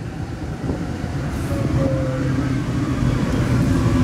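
Alstom NS-16 metro train heard from the driver's cab as it comes into a station: steady rumble of the wheels on the rails under a low electric whine from the traction equipment, holding a few pitches and growing slightly louder.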